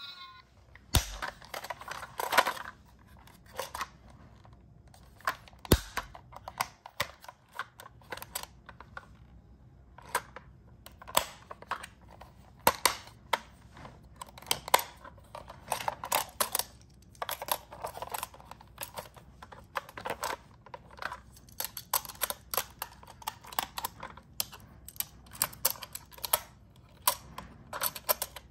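Irregular plastic clicks and rattles of a toy ambulance being handled and pulled apart, its body shell, door and interior parts knocking together.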